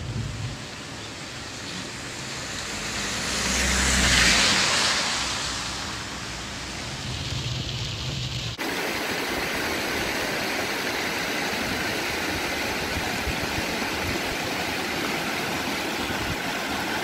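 Traffic on a rain-soaked road: tyre hiss on wet tarmac swells as a vehicle passes about four seconds in, then fades. About halfway through the sound changes abruptly to a steady rushing of rain and running floodwater.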